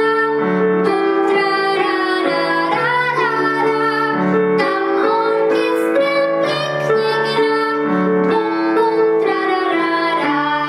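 A girl singing a Polish children's song, with a woman singing along, to piano accompaniment on a digital piano. The accompaniment has a steady, repeating bass.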